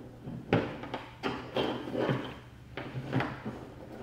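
Several irregular clicks, knocks and short scrapes of a soldering iron tip and fingers working at a stuck solder joint on a gel blaster's gearbox motor terminal while it is being unsoldered.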